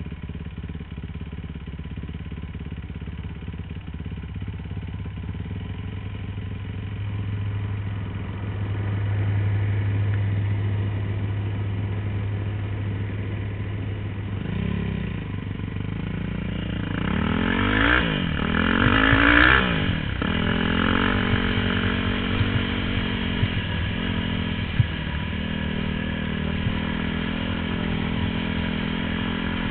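Dirt bike engine running at steady throttle, then revving up and down in several quick rises and falls of pitch about halfway through, its loudest point, before settling back to a steady running note.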